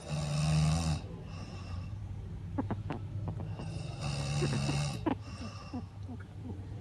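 A heavy-set person snoring loudly in sleep: two long, rasping snores about four seconds apart, with quieter breathing between them.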